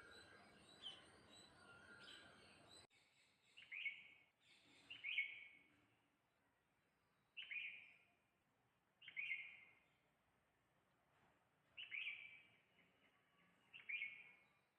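Bird calls: a quick run of repeated high chirps, then after an abrupt cut six short calls, each dropping in pitch, spaced a second or two apart.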